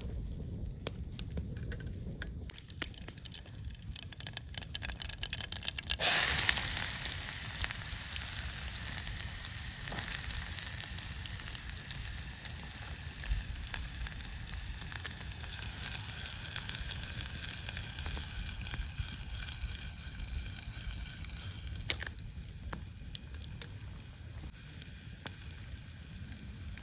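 Food frying and sizzling in hot oil over a campfire. Scattered crackling at first, then about six seconds in a sudden loud sizzle starts, the sign of food going into hot oil. It fades slowly and drops away near the end.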